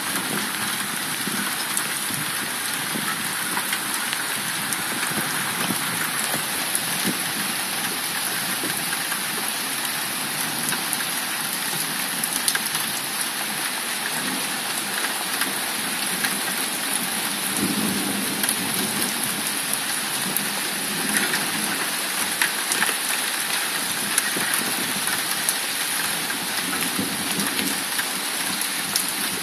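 Steady rain falling during a thunderstorm, an even hiss with scattered drop ticks, and a faint low rumble of distant thunder a little past halfway.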